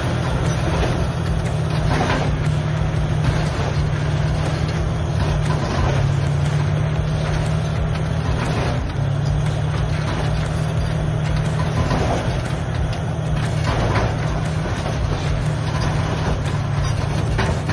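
Large crawler bulldozer's diesel engine running steadily under load, with a louder rush of machine noise every few seconds.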